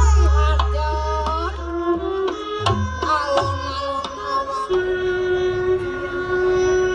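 Music: a held melody line over a deep bass note in the first two seconds, then several sharp drum strikes, then one long held note.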